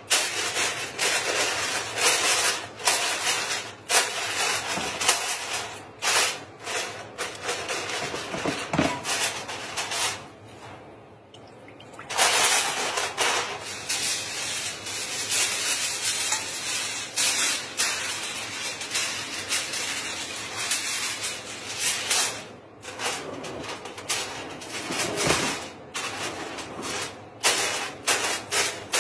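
Aluminium foil crinkling and rustling as it is pressed and smoothed over the rim of a wide cooking pot to seal it for dum cooking, with a brief lull about ten seconds in.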